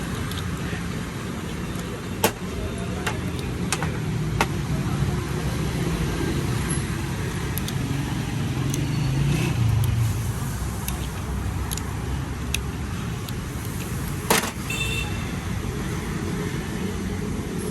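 A steady low engine rumble that swells a little about halfway, with a few sharp metallic clicks, the loudest near the end.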